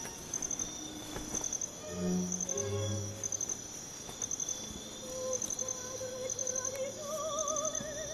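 Crickets chirping in short, regularly repeating pulses, over soft film-score music with a wavering tone and a couple of low notes about two seconds in.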